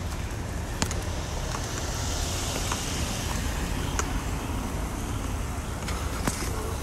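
Road traffic noise: a car passing, its hiss swelling and fading over a steady low rumble, with a few sharp clicks.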